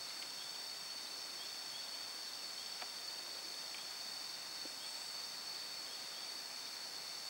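Steady high-pitched buzzing chorus of insects, several even tones held without a break, with a faint tick about three seconds in.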